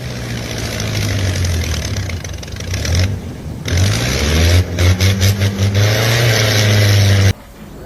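Engine of a heavy construction vehicle running and revving, its pitch rising and falling in quick pulses midway. It cuts off abruptly near the end.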